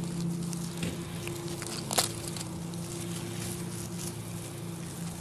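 Dachshund puppy chewing a dry leaf: scattered crackling and crunching of the leaf and dry grass, with one sharp snap about two seconds in.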